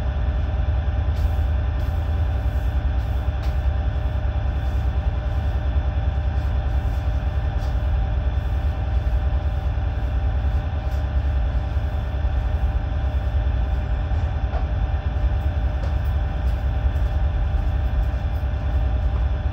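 Steady low rumble and hum of a moored tanker's onboard machinery, unchanging throughout, with a few faint ticks.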